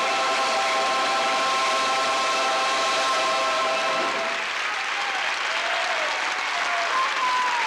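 Audience applauding over the final held chord of a large choir, which cuts off about four seconds in; the applause carries on with some cheering.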